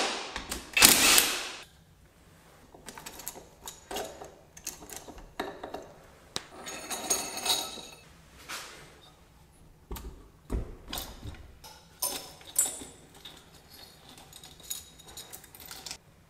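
Yamaha XT225 engine being taken apart with hand and power tools. A small power tool whirs in a couple of short bursts at the start. Then come scattered clicks and clinks of tools and bolts, a stretch of ringing metal in the middle, and one heavier knock about ten seconds in.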